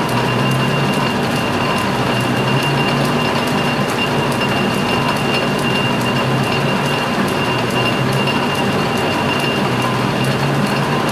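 Metal lathe running under power, spindle and gear train turning: a steady high whine over a low hum, with a constant light ticking.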